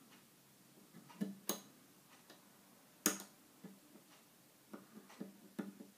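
Irregular light metallic clicks of a pick wire and a long hook working in the keyway of a small two-lever R & F Keates brass padlock, about seven ticks, the loudest about three seconds in.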